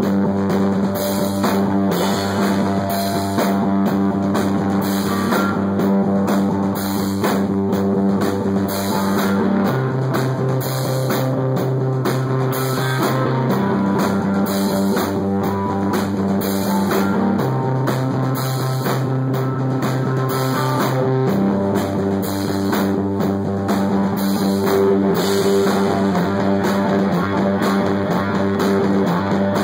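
A stoner-metal band playing loud and live: a heavy electric-guitar riff over a drum kit, with no singing. The low riff note drops and comes back in a slow pattern of about four seconds, with regular drum hits throughout.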